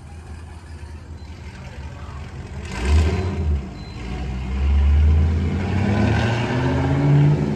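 Loud car engine and exhaust: two heavy low rumbling blasts, about three and five seconds in, then an engine accelerating with its pitch rising near the end.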